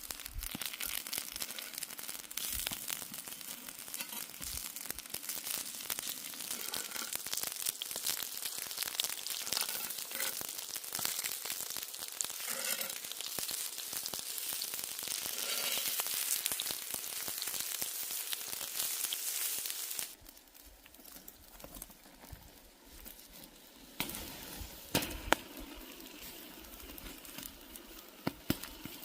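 Food sizzling and crackling while cooking over an open fire, a dense crackly hiss full of small pops. About two-thirds of the way in it drops suddenly much quieter, with a few sharp pops near the end.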